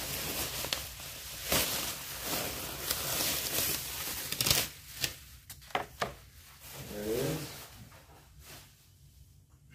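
Bubble wrap rustling and crinkling as a large wad of it is handled and pulled away, with a few sharp crackles about five to six seconds in, then softer handling.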